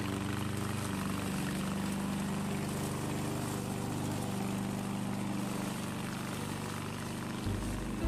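Gasoline engine of a remote-controlled crawler lawn mower running steadily under load while its cutter chews through brush, a constant engine hum with a hiss of cutting over it.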